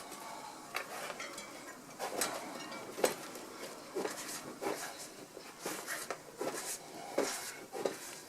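Deflated bicycle tyre being pushed around the rim by hand, rubber rubbing against the rim in short, irregular strokes, done to straighten a crooked valve.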